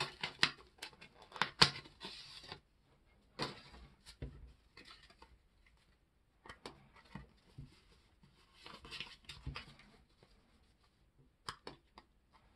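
Paper card-pack wrapper being torn and crinkled open, then a stack of trading cards handled and slid against each other, with scattered light taps and clicks. The rustling is busiest in the first couple of seconds and comes back in short bursts, with quiet stretches between.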